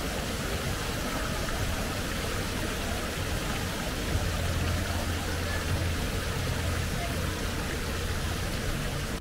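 City street ambience: a steady wash of traffic noise with a low rumble underneath and indistinct voices of passers-by.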